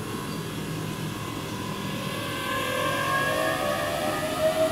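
Keihan 9000-series electric train pulling away from the platform: its motors start up about two seconds in with a whine of several tones rising steadily in pitch as it gathers speed.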